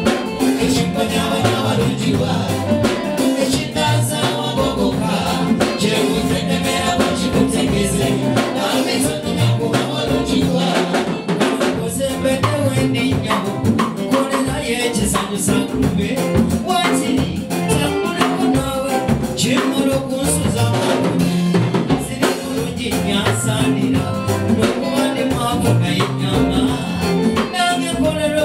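A live band playing a steady, upbeat groove on drum kit, congas, electric guitars, bass and keyboard, with a man singing into a microphone.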